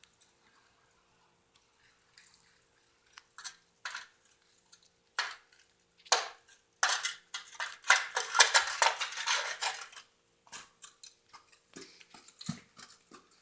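Metal foundry tools clinking and scraping against metal. There are scattered sharp knocks, then a busy stretch of rattling scrapes in the middle, then a few more knocks.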